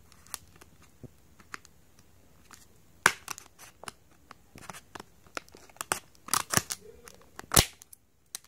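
Scissors cutting through a stiff plastic clamshell blister pack: a series of sharp, separate snips and crackles. The loudest come about three seconds in and in a cluster near the end.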